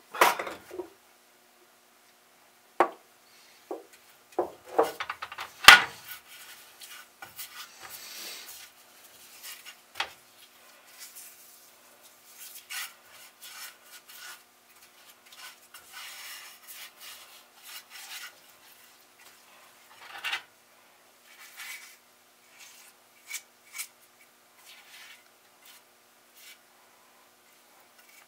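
Metal reel-mower parts being handled and rubbed during rust removal: a few sharp clinks and knocks, the loudest about six seconds in, then on-and-off rubbing and scraping with scattered light ticks.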